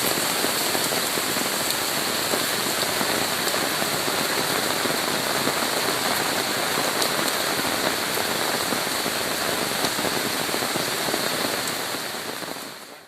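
Heavy rain falling steadily, with single drops ticking now and then through the hiss. It fades out over the last second or so.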